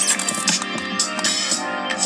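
Music with a steady beat, about two beats a second, with guitar, played by a GoTo M300CZ car radio through a pair of coaxial car speakers.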